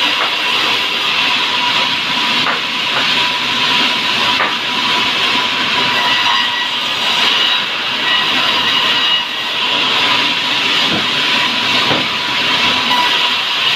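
A steady machine noise: a loud, even hiss with a constant thin whine, running without a break.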